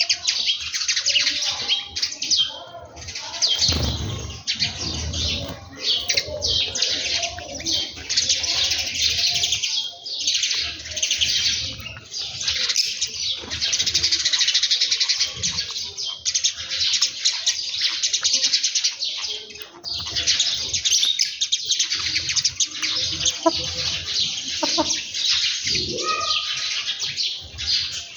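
A flock of small birds chirping and twittering all at once, many calls overlapping without a break, with a few low thuds about four seconds in.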